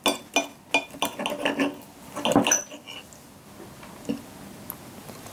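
Knife and fork clinking and scraping against a plate as a steak is cut: a quick run of clinks over the first three seconds, then quieter, with one more clink about four seconds in.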